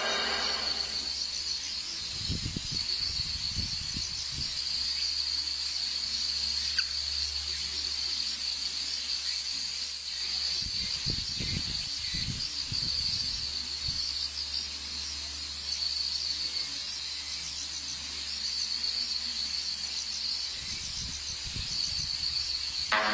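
Insects chirring in a steady, high-pitched chorus, with a few low rumbles underneath.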